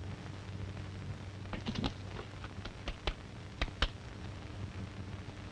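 Steady hiss and low hum of an old 1930s film soundtrack, with a scattering of sharp clicks between about one and a half and four seconds in.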